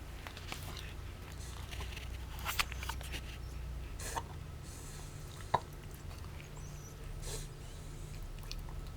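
A dachshund making short, irregular snorts and sniffs during a bout of reverse sneezing, with a sharp click a little past halfway.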